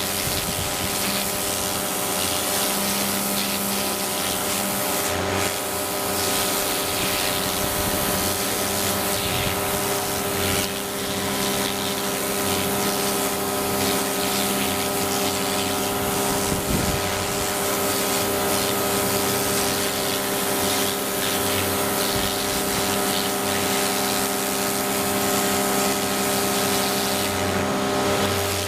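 GreenWorks GPW1600 electric pressure washer running steadily, its motor and pump humming under the hiss of the water jet spraying from the wand.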